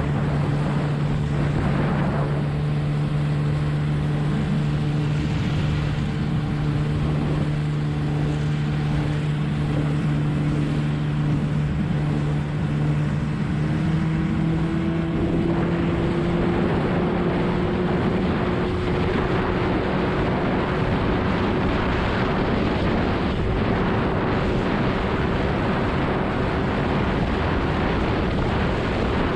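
20 hp Evinrude two-stroke outboard motor pushing a small hydroplane: it runs steadily, then revs higher about halfway through as the boat speeds up, and a rushing noise grows louder along with it.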